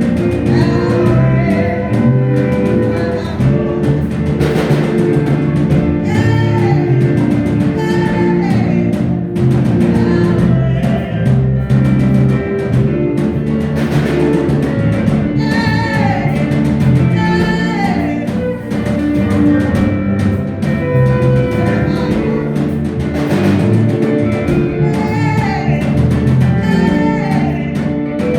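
Gospel praise music: voices singing over guitar and drums.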